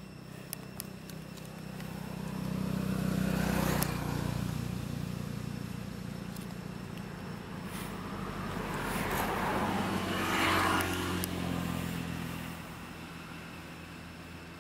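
Motor vehicles passing on a nearby road. The engine and tyre noise swells to a peak about four seconds in, fades, then swells again with a second pass about ten seconds in.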